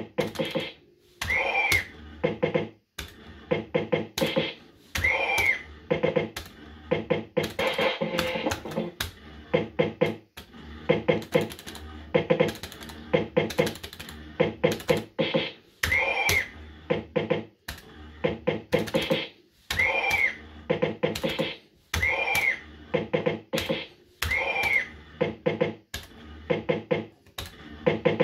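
JPM Red Hot 6 fruit machine being played spin after spin: its electronic beeps and jingles play, with a short rising-and-falling chirp on each spin and quick clicks as the reels run and stop.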